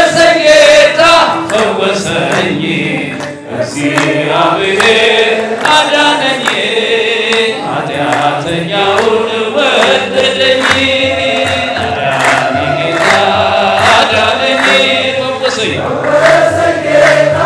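A crowd singing an Ethiopian Orthodox hymn (mezmur) together in chorus, with rhythmic handclapping.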